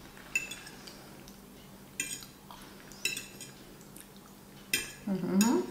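Metal fork clinking against a ceramic plate, four separate clinks a second or so apart, as the last of the pasta is gathered up. A short vocal sound comes near the end.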